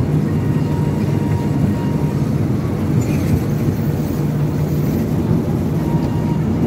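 Motor of a small ride-on Christmas train running at steady speed, a continuous low hum heard from aboard.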